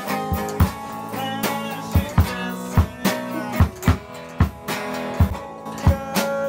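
Music: guitar and drum kit playing together, chords held under a beat of sharp drum hits.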